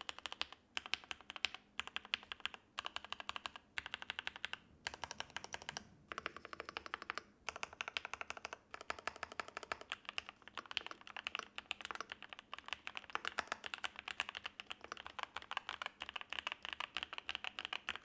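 Typing sound test on a Yunzii IF98 gasket-mounted mechanical keyboard, stock, with factory pre-lubed Gateron G Pro switches and thick PBT keycaps. Fast runs of key clacks, broken by short pauses now and then.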